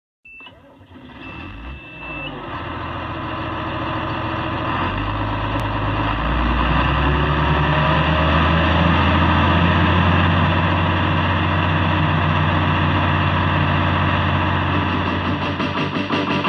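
Large farm-machinery engine running and building up speed, growing louder over the first few seconds and stepping up in pitch about five and six seconds in, then holding steady. A steady high beep sounds for the first two seconds.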